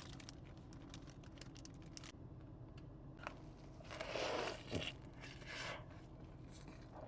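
Takeout food packaging being torn and crinkled open: small clicks and rustles, then louder tearing about four seconds in and again near six seconds.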